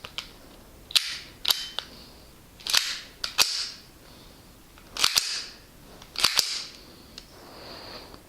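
WE TT-33 all-metal gas-blowback airsoft pistol being cocked by hand about four times, each time a pair of sharp metal clicks as the slide is drawn back and snaps forward.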